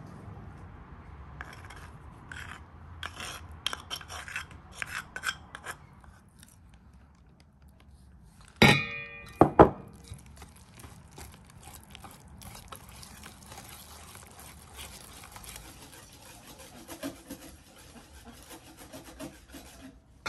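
A wire whisk steadily scraping and stirring a thick creamy paste of tomato paste and spices in an enamel bowl. Before it, scattered scraping clicks of a spoon scooping from a clay bowl, and two sharp ringing knocks about nine seconds in.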